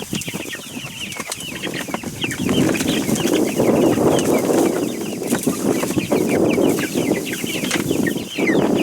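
A group of young chicks peeping constantly: many short, falling chirps. A steady rustling noise runs under them from a few seconds in until just before the end.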